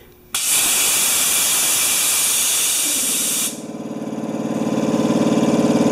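Compressed air hissing out of the twin-tank electric wheelbarrow air compressor for about three seconds, bleeding the tank pressure down. The hiss cuts off as the electric motor and pump cut in on the pressure switch, running with a fast, even pulsing that grows louder as the tanks start to charge.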